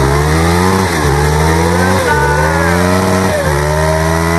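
Two-stroke dirt bike engine accelerating up through the gears: the pitch climbs and drops sharply at each of three shifts about a second apart, then holds steady near the end.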